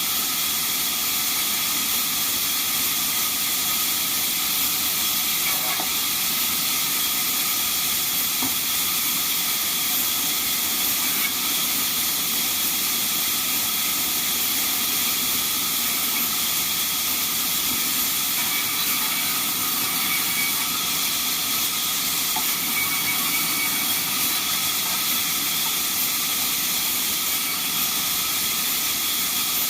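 Band sawmill running with a steady, loud hiss that holds unchanged throughout.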